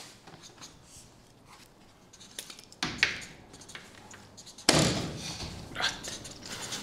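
Scattered handling noises at a desk in a quiet room: light rustles and clicks, two sharp knocks about three seconds in, and a louder thud about two-thirds of the way through.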